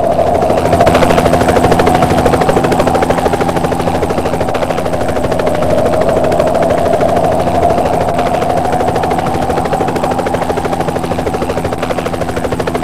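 Helicopter running, its rotor blades chopping fast over a steady turbine whine, cutting off abruptly at the end.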